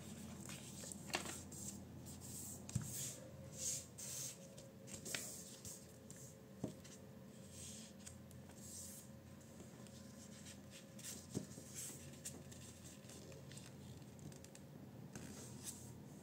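A sheet of A4 printer paper being handled and folded by hand: faint rustling swishes as the paper is moved and creased, with a few sharp clicks as folds are pressed down against the tabletop.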